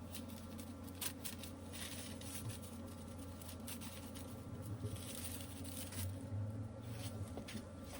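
Hands mixing and rubbing seasoning into raw chicken pieces, giving soft, irregular squishing and pattering, over a steady low hum.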